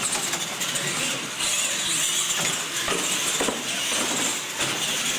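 Radio-controlled monster trucks racing, their motors whining high and rising and falling with the throttle, with several sharp knocks as the trucks hit and come down off the ramps.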